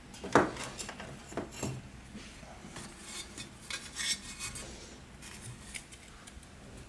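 Light metallic clinks, knocks and scrapes as an outboard lower unit gearcase is handled and turned on a wooden table, the sharpest knock just after the start, others scattered irregularly through.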